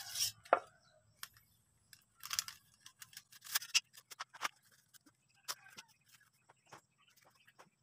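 Paper, cloth and a plastic bag rustling and crinkling as they are handled, with many scattered small clicks and brief rustles.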